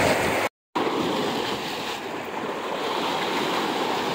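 Sea surf washing against a rocky shore, a steady rushing noise that drops out briefly about half a second in.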